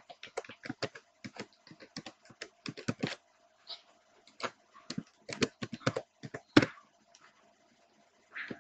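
Typing on a computer keyboard: irregular keystroke clicks in two quick runs with a short pause between, stopping about two-thirds of the way in. A faint steady hum lies underneath.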